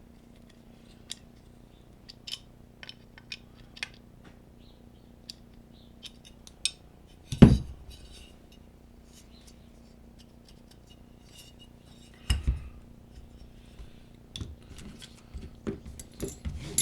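Small metal tools and gun parts clicking and clinking as they are handled on a workbench, with two heavy knocks, one about seven seconds in and one about twelve seconds in, and a quicker run of clicks near the end.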